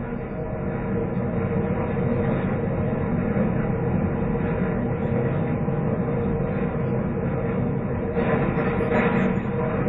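Steady mechanical rumble of container-terminal machinery with a constant hum running through it. It swells in over the first couple of seconds and grows briefly brighter near the end.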